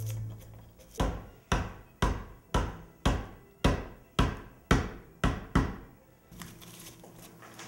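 Wood-carving tool chopping into a block of wood: about ten sharp blows, roughly two a second, each ringing briefly, stopping about six seconds in.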